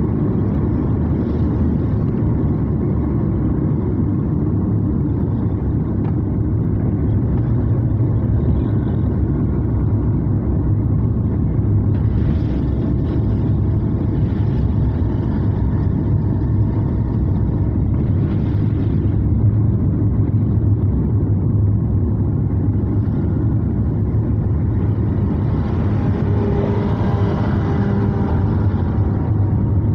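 A car driving, heard from inside the cabin: a steady low rumble of engine and road noise, with the hiss of tyres on a wet road that grows louder near the end.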